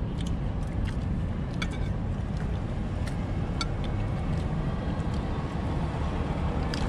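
Light, scattered clinks of cutlery against plates and bowls during a meal, over a steady low rumble of background noise.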